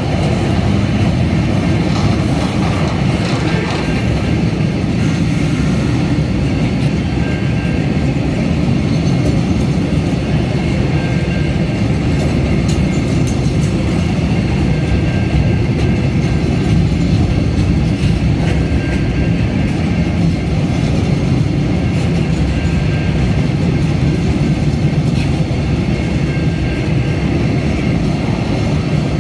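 Empty freight wagons of a train rolling past close by: a loud, steady rumble of steel wheels on rail.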